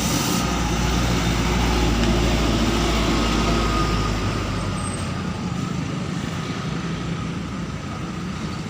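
Diesel excavator engines running under work, a steady mechanical hum with a faint high whine. The deep rumble drops away about four and a half seconds in.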